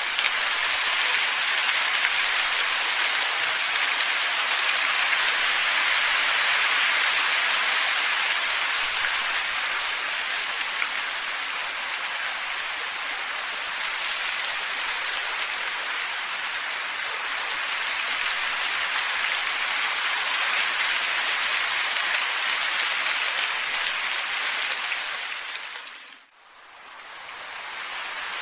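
Steady hiss of wind that swells and eases slightly. About 26 seconds in it drops out abruptly and fades back in over a couple of seconds.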